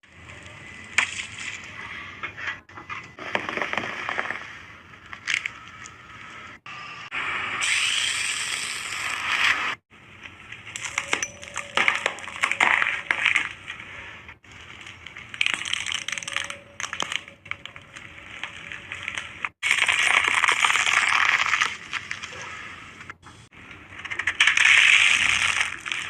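Objects crunching, crackling and snapping as a car tyre rolls over and crushes them, in a series of short clips that cut off suddenly one after another, with sharp clinks and cracks among the crunching.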